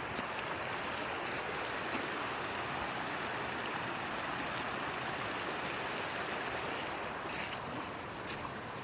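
Mountain stream flowing steadily, an even rush of water, with a few faint ticks on top.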